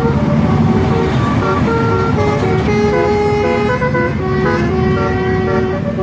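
A bus's multi-tone 'telolet' air horn playing a quick tune of stepped notes, over the low running of the bus engine.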